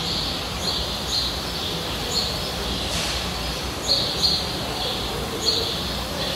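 Birds chirping: short high chirps repeated at uneven intervals, several a second at times, over a steady background din.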